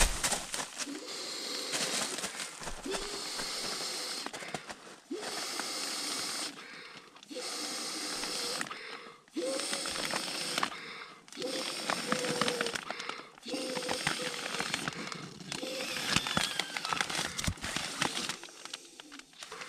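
A man blowing up an inflatable camping sleeping pad by mouth: about a dozen breathy exhales into its valve, each a second or so long, with short pauses for breath between them.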